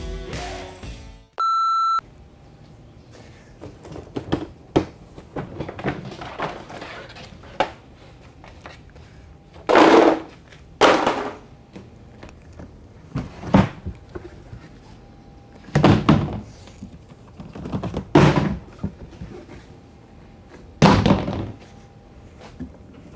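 Hollow thunks of empty plastic storage totes being pulled off a stack and set down on the garage floor: six loud knocks spread through, each with a short ring.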